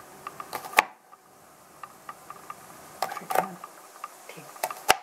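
Kitchen knife cutting a small piece of onion and tapping on a plastic cutting board: a few scattered knocks and clicks, the loudest just under a second in.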